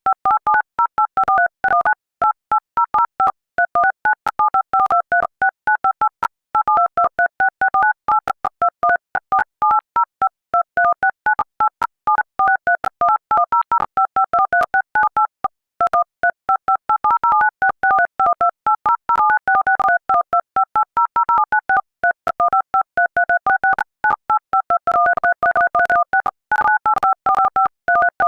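Android phone's dial-pad ringtone: quick runs of short touch-tone keypad beeps, each a pair of tones sounding together, stepping from one pair to the next like a tune, with a few brief breaks.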